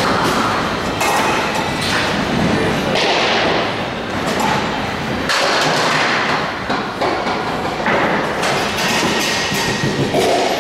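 Bowling alley din: balls thudding and rolling on wooden lanes and pins clattering, a dense, steady run of irregular knocks.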